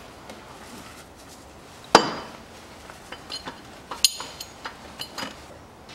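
Sharp metallic clinks and taps as the metal water pump pulley of a Kia Rio 1.4 engine is fitted back onto the pump hub by hand. The loudest knock comes about two seconds in, and a ringing clink about four seconds in.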